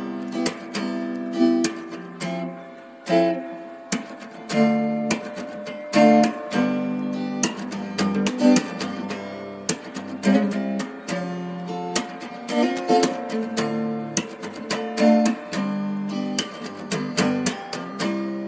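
Background music played on plucked and strummed acoustic guitar, a steady run of notes.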